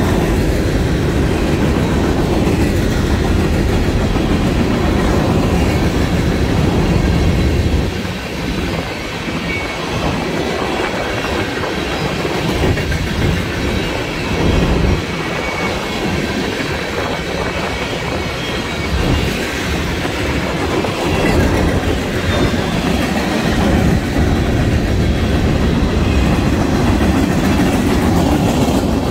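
Freight cars of a passing manifest train, tank cars and covered hoppers, rolling by close: a steady rumble with wheels clacking over the rail joints.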